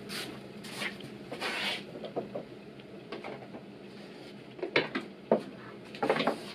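Scattered light metallic clicks and scrapes of a Torx driver working the aluminum valve-body bolts loose on a 9G-Tronic transmission, the loudest few near the end.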